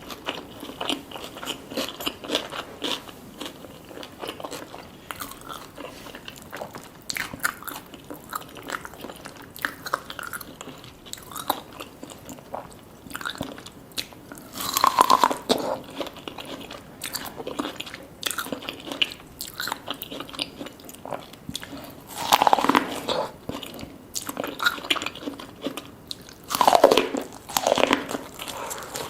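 Close-miked eating: biting and chewing with crunchy, wet mouth clicks throughout, and three louder bursts of chewing and mouth sounds, about halfway, three-quarters of the way and near the end.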